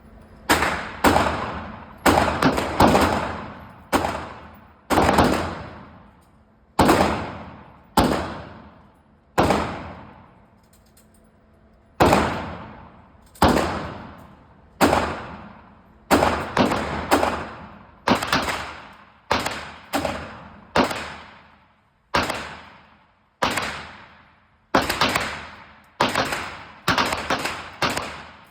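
A gun fired shot by shot, about thirty sharp reports in all, each followed by an echo that fades over about a second. The shots come at an uneven pace, slower at first and quicker from about halfway through.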